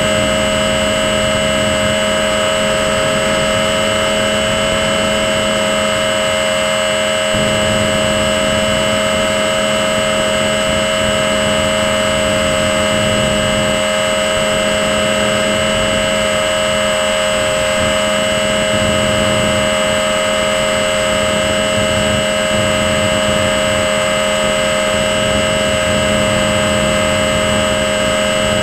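RC model plane's motor and propeller running at steady throttle, heard from a camera mounted on the plane: a constant whine whose pitch doesn't change, with wind rushing over the microphone underneath.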